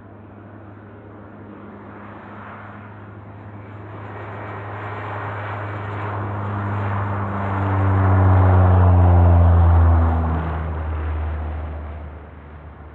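Antonov An-24B twin-turboprop airliner taking off past the listener, its Ivchenko AI-24 turboprops and propellers making a low droning hum. The drone grows louder to a peak about eight to ten seconds in, then drops in pitch and fades as the aircraft goes by.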